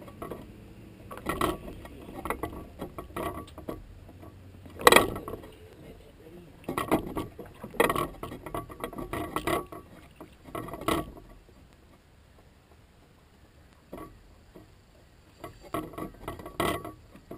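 Knocks and rattles on a small aluminium boat, in irregular clusters with the sharpest knock about five seconds in, as gear and feet move about on the deck and hull.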